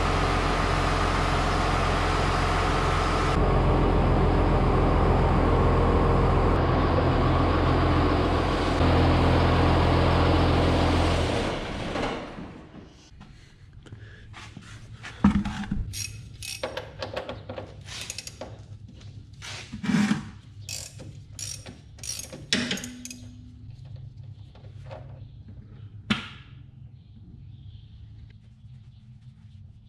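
Tractor engine idling steadily to warm its oil before an oil change, stopping about twelve seconds in. After it, a scattering of sharp metal clicks and knocks from hand tools at work under the tractor.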